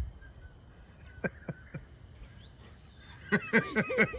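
A bird calling: a few faint short calls, then about three seconds in a loud rapid run of harsh, falling calls, about four or five a second.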